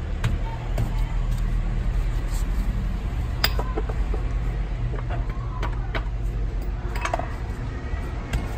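Scattered clicks and knocks from the rear wheel, hub bearing and suspension joints of a TGB Blade 550 ATV as the wheel is rocked and turned by hand to check for play, over a steady low hum. The check finds no play.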